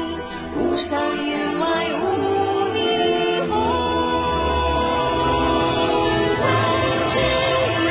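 Song with vocals that sound like a choir singing over the accompaniment; a long held sung note comes in a little before halfway through.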